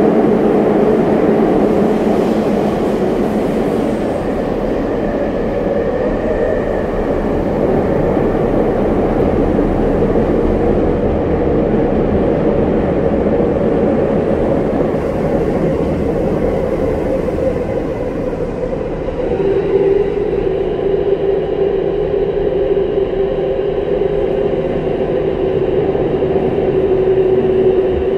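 Interior running sound of a Tokyu 5080-series electric subway train with a Toshiba IEGT-VVVF inverter, travelling through a tunnel: a steady rumble of wheels on rail. About two-thirds of the way through, a steady whine from the traction motors comes in and holds.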